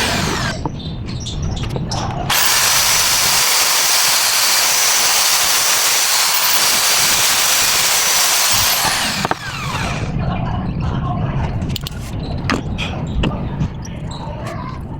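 Handheld power tool running at speed in a long stretch of several seconds, its motor winding down in pitch as it stops, followed by quieter clicks and taps of handling.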